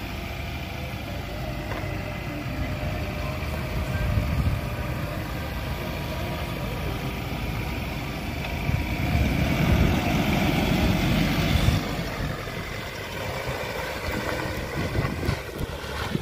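Ford Ranger Raptor pickup's 2.0-litre bi-turbo diesel engine running at idle, growing louder for a few seconds about nine seconds in as the truck pulls away.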